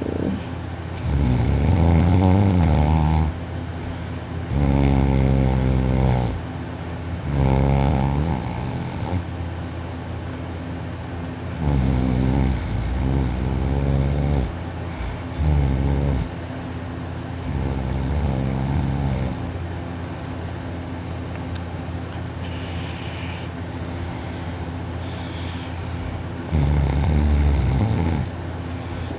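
A young man asleep on his back, snoring loudly: about seven long snores, each one to three seconds, with a longer pause of several seconds before the last one.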